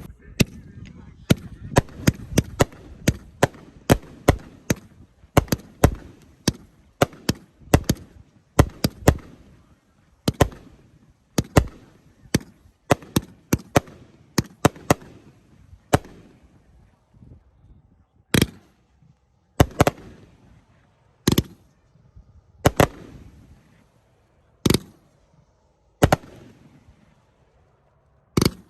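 A 500-gram consumer firework cake with 3/4-inch tubes firing its shots. For the first fifteen seconds or so the reports come in quick succession, each launch pop followed by a bang and a brief crackling tail. After that, single loud bangs come roughly every second and a half.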